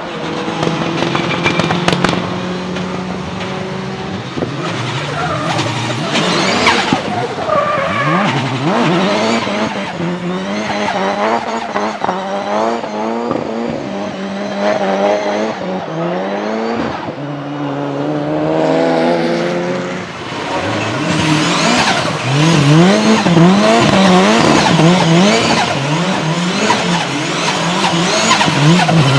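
Turbocharged Nissan 200SX S13 drifting: the engine revs up and down again and again under quick on-off throttle, with tyres squealing. The revs waver fastest in the last third.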